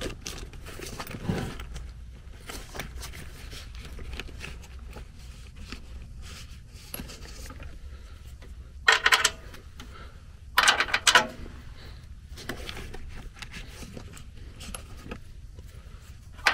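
Hand tools and sheet-metal furnace parts clinking and scraping during work on the blower housing, over a low steady hum, with two short louder bursts of noise about nine and eleven seconds in.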